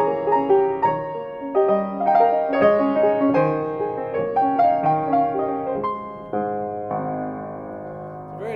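Steinway & Sons Model S baby grand piano played: a flowing passage of struck notes and chords that slows in the last couple of seconds to a long held chord left ringing.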